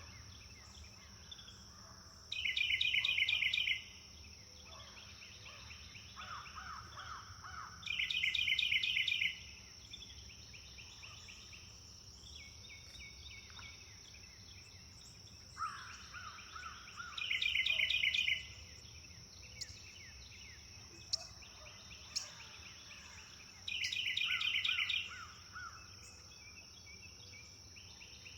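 Songbirds singing: one bird repeats a loud, rapid trill lasting about a second, four times at intervals of roughly six seconds, while another answers with a lower, softer trill. A steady high-pitched tone runs underneath.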